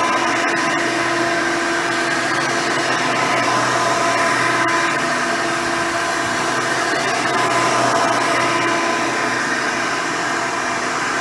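Hoover Elite 350 upright vacuum cleaner running steadily, fitted with a 7-amp motor and its original seven-blade fan: a steady whine over rushing air.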